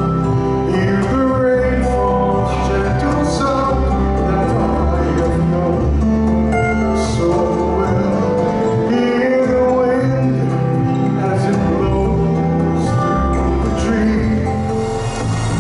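Show music with singing over a steady bass and percussion.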